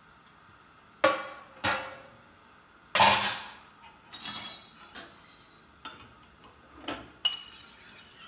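Kitchenware clattering: about seven sharp clinks and knocks of utensils, pots or dishes being handled, each with a short ring, the loudest about three seconds in.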